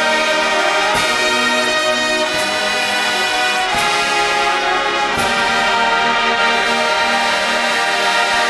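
Marching band brass section playing full, sustained chords, punctuated by four sharp hits in the first five seconds.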